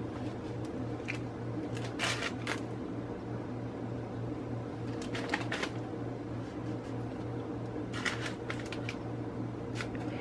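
A plastic lid used as a cookie cutter is pressed and twisted into soft dough lying on a plastic bag, giving a few short crinkles and rustles of the plastic with light taps. A steady low hum runs underneath.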